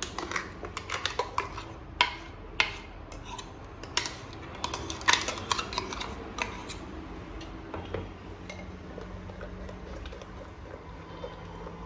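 A metal spoon clinking and scraping against a steel mixer jar as thick ground masala paste is scooped out into a plastic strainer. There are many sharp clinks over the first six or seven seconds, then quieter rubbing as the paste is pressed through the strainer mesh.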